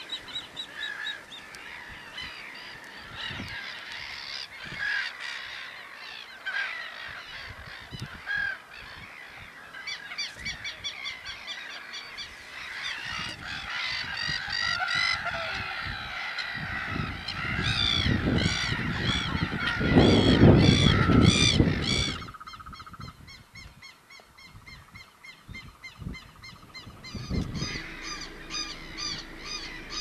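Chorus of waterbirds (ducks, coots and gulls) calling over one another with many short repeated calls. It builds to its busiest and loudest around the middle, where a low rumble joins in, then thins out to sparser calling.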